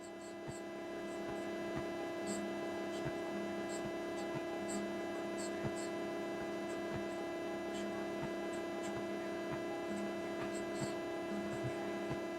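Steady electrical hum made of several held tones, with faint scattered ticks.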